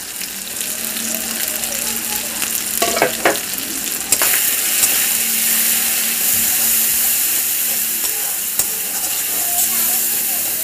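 Onion-tomato masala with ground spices sizzling in hot oil in a kadai while it is stirred with a metal spatula, with a few short scrapes of the spatula on the pan. The sizzle grows louder about four seconds in. This is the masala being fried down (koshano) before water is added for the curry.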